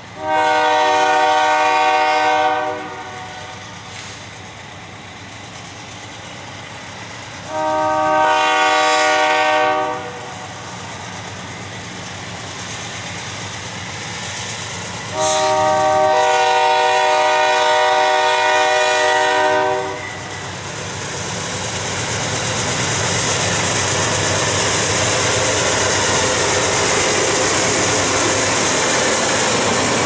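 A diesel locomotive's multi-note air horn sounds three blasts for a grade crossing, the first two about two and a half seconds each and the last about four and a half seconds. After the horn stops, the rumble and wheel noise of the CN freight train grow louder as the locomotive passes close by.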